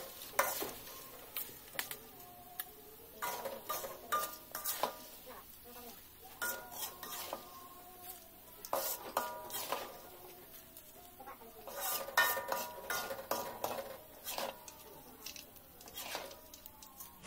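Metal slotted skimmer and spatula scraping and clinking against an aluminium wok while stirring and lifting crisp fried grasshoppers, in irregular clusters with short metallic rings.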